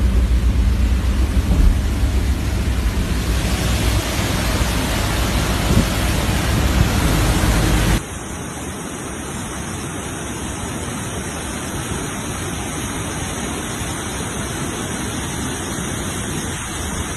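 Rain and wind, with wind rumbling heavily on the microphone; about eight seconds in the sound cuts abruptly to a quieter, even rushing hiss.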